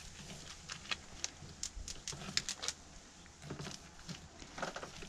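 Faint, scattered clicks and taps from a fillet knife and gloved hands deboning a deer's front shoulder on a plastic cutting board.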